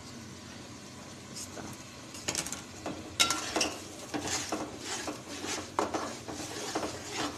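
A spatula stirring and scraping a thick masala round an aluminium pot, with irregular knocks and clinks against the pot's side, over a light sizzle of the spices frying in oil. The stirring starts about a second and a half in and gets louder and busier after about two seconds.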